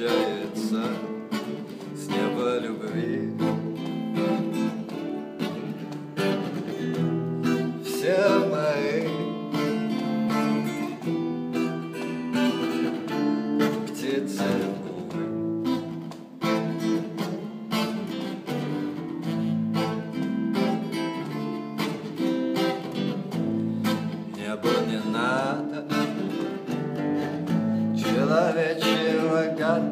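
Music: an acoustic guitar playing an instrumental passage of a song, chords plucked and strummed.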